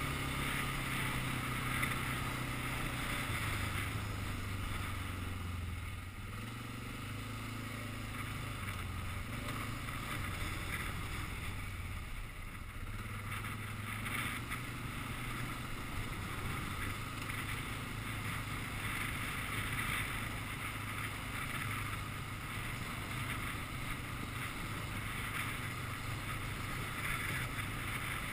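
ATV engine running steadily under way, its note shifting up and down in steps with the throttle.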